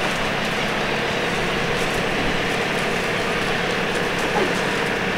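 Steady mechanical hum with a constant hiss, unchanging throughout.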